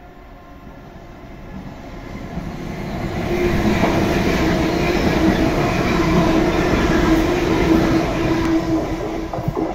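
ScotRail Class 334 electric multiple unit, two units coupled, passing through the station at speed. A rumble swells over the first few seconds as it approaches, then a loud steady rumble with a humming tone runs while the carriages go by, easing slightly near the end.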